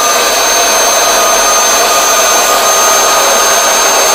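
Electric air pump running steadily as it inflates an inflatable pool: a constant rush of air with a steady motor whine.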